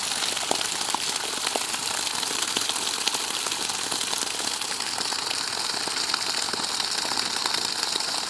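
A stream of water from a 2 HP eight-stage submersible pump's 2-inch discharge pipe gushing out and splashing onto grass and cloth. It makes a steady, rain-like spatter with small crackles.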